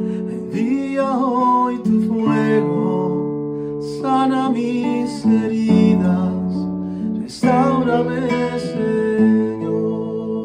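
Acoustic guitar music: strummed and plucked chords ringing steadily, with a wavering melody line over them twice.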